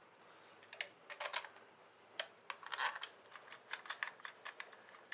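Faint, irregular clicks and taps, a dozen or more, clustered about a second in and again near three seconds.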